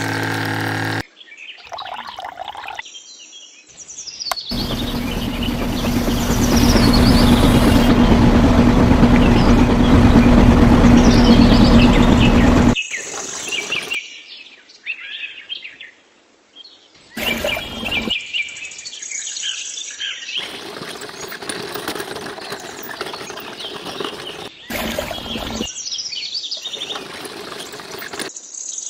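A small electric motor driving a miniature model machine runs with a steady hum for about eight seconds in the middle. Shorter clips around it carry birds chirping in the background.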